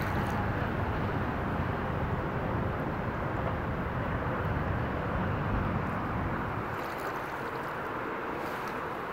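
Steady outdoor rumble and hiss of wind and moving river water, easing slightly after about seven seconds, with a few faint ticks near the end.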